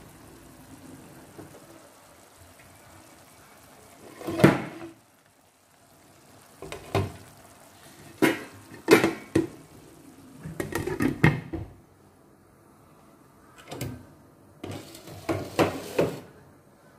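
Cookware being handled: a string of sharp knocks and clinks, singly and in short clusters, among them a glass lid being set on a frying pan, over the faint hiss of tomato sauce simmering in the pan.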